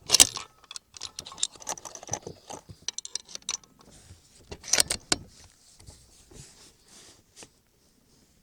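A run of small metallic clicks and rattles from handling the bolt-action .308 rifle and its scope as the aim is dialled down. The sharpest clicks come just after the start and again a little before the five-second mark, then the ticks thin out.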